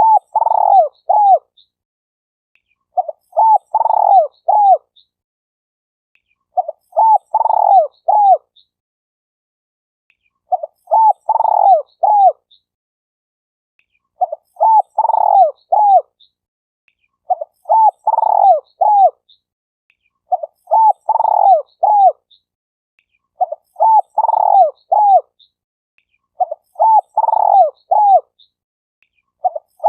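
Spotted dove (tekukur) cooing: a short phrase of several low falling coos, repeated about every three seconds with silence between.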